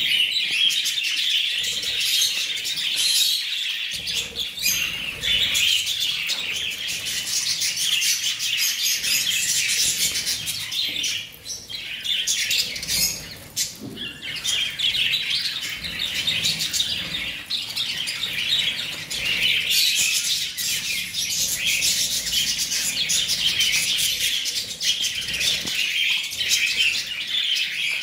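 A flock of budgerigars chattering without pause, a dense twittering of many birds at once that thins out briefly about halfway through.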